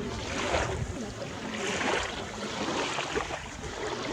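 Wind on the microphone and small waves washing in the shallows, a steady rushing noise that swells and eases irregularly.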